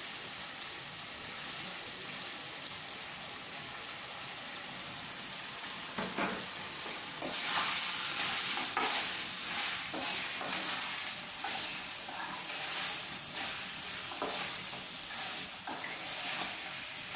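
Beef pieces sizzling and frying in a kadai as their remaining liquid cooks off. About seven seconds in, a spoon starts stirring through the meat, adding repeated louder scraping strokes against the pan over the sizzle.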